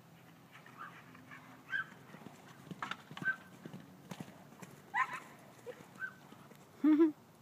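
A horse galloping in a pasture, its hooves thudding on the turf, while a dog running alongside gives several short, high barks; the loudest, a double bark, comes near the end.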